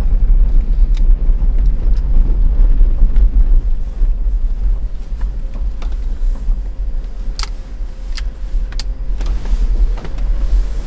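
Cabin noise of an Ineos Grenadier 4x4 driving over rough ground: a heavy, uneven low rumble with scattered sharp knocks and rattles from the suspension and body. A faint steady whine joins about halfway through.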